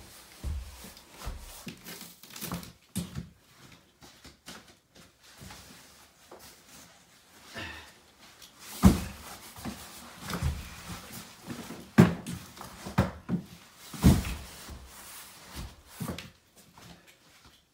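Cardboard cases of toilet paper being set down and shoved into a stack: a run of dull thumps and cardboard scuffs, the loudest three at about 9, 12 and 14 seconds in.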